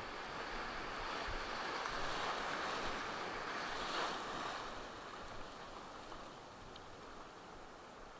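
Sea surf breaking and washing through the shallows, a wave building to its loudest about four seconds in and then dying away.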